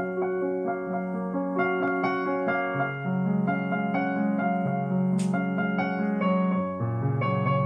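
Background piano music: a melody over held low notes.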